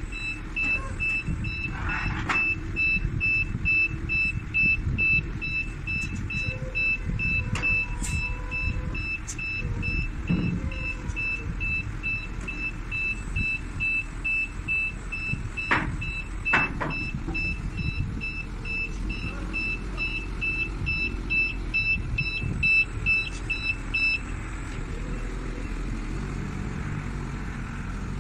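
Cat DP150 diesel forklift running under load, its reverse alarm beeping steadily about twice a second as it backs away, then stopping near the end while the engine keeps running. Two sharp knocks sound a little past the middle.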